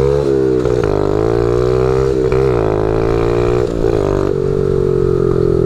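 Small 50cc pit bike engine running under way, its drone rising and falling in pitch as the throttle opens and closes.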